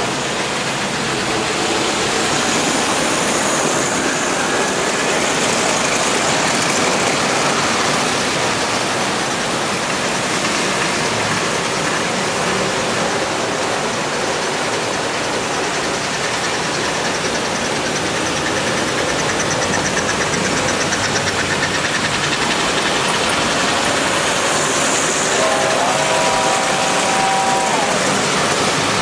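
S-gauge model train running on the layout's track, a steady rolling rush of wheels and motor. A few short tones at two pitches sound near the end.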